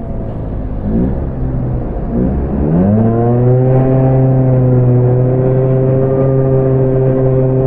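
Truck engine revving in short rises, then climbing and holding steady at a raised speed about three seconds in.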